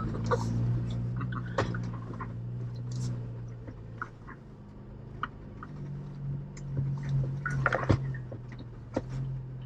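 Jeep's engine running at a low, steady drone while the vehicle crawls over trail, with scattered knocks and rattles as it goes over bumps. The drone rises slightly about six seconds in.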